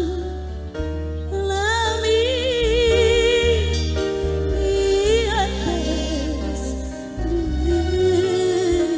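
Live dangdut orkes melayu music in an instrumental interlude between verses: a lead melody with wide vibrato over a steady bass line.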